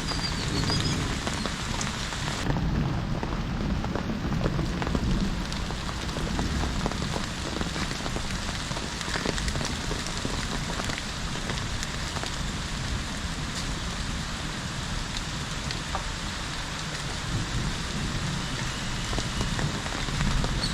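Steady rainfall, with many close raindrops ticking sharply over the even hiss of the rain and a low rumble underneath.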